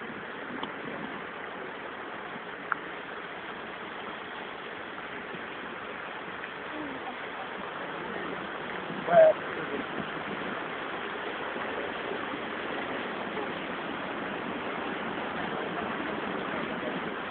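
A 4x4 driving through water on a flooded track: a steady rush and wash of water around the vehicle over its engine, growing slightly louder toward the end as the vehicle pushes a bow wave.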